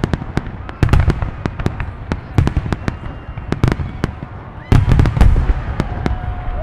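Aerial fireworks going off in a rapid barrage of sharp cracks and deep booms, with the heaviest cluster of booms about five seconds in.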